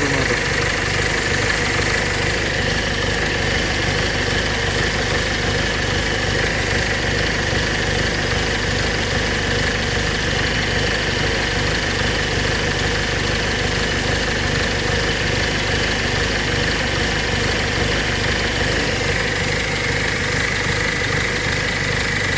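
Car engine idling steadily, with a steady high-pitched tone running over the engine sound, a little stronger about twenty seconds in.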